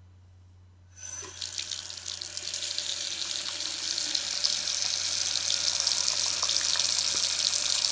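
Delta faucet turned on about a second in, with water running into the sink. The flow builds over a couple of seconds to a steady stream.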